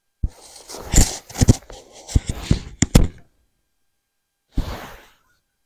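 A close-up series of sharp knocks and rustles for about three seconds, then one short rustle near the end: handling noise from the angler's tackle.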